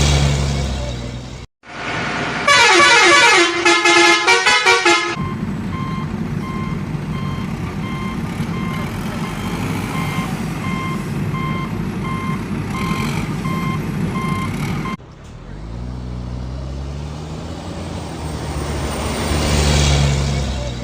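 Toy construction-vehicle sound effects: an engine hum, then a pulsing horn toot a few seconds in, then a steady run of regular beeps like a reversing alarm over a hiss, and near the end an engine rising in pitch as it revs.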